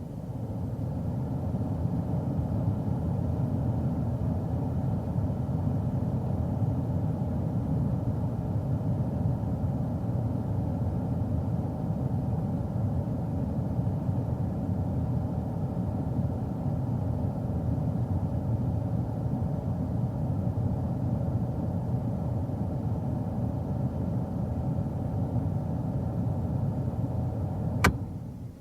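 Car engine running steadily, an even low rumble that holds its level without revving. A sharp click near the end, then it fades out.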